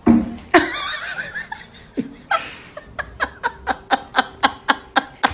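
A person laughing: a wavering, drawn-out laugh at the start, then rapid short bursts of laughter, about five a second, in the second half.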